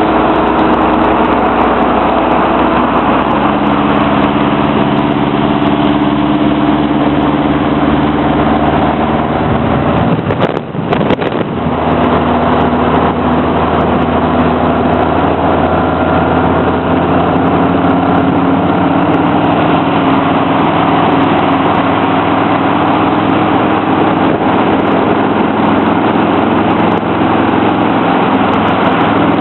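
Car engine running at cruising speed with road and wind noise, heard from a moving car; the engine note drifts up and down in pitch. There is a short break with a few clicks about ten seconds in.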